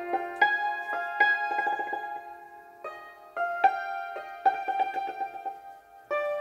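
Background piano music: notes and chords struck one after another and left to ring and fade.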